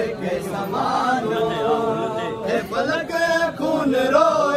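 Men's voices chanting a Saraiki noha, a Shia mourning lament, in a melodic line that rises and falls with a short break about two and a half seconds in.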